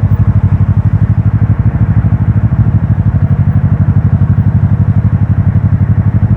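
Motorcycle engine running at a steady pace, an even low throb of about a dozen beats a second, with wind rushing over the helmet-mounted microphone.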